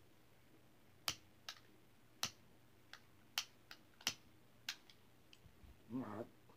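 Trigger of a long-nose utility lighter clicked over and over, about nine sharp, irregularly spaced clicks, followed by a brief mumble near the end.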